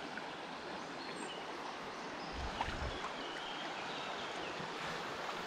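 River water rushing steadily over a trout stream.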